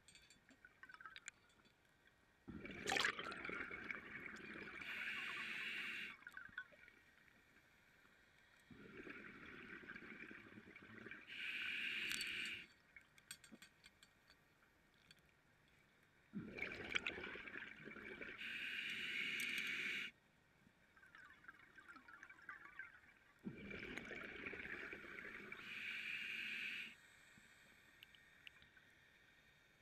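Scuba diver breathing through a regulator underwater: four breath cycles about seven seconds apart, each a bubbling, gurgling exhale followed by a shorter hissing inhale.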